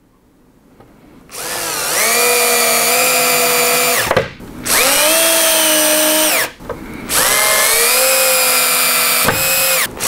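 Power drill-driver running screws in to fix T-track to a plywood bench top. The motor runs three times for a couple of seconds each, winding up in pitch and back down at each stop, and starts a fourth run at the very end.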